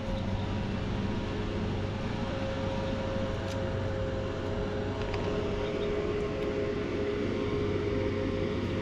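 An engine running at a steady, unchanging hum. A couple of faint ticks sound about a third and halfway through.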